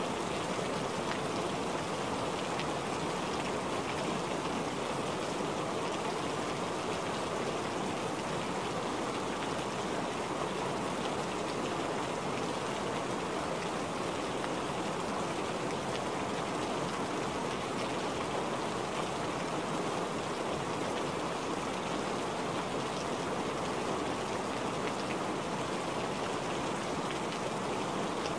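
Heavy rain falling steadily, an even hiss of splashing drops with no pauses or changes.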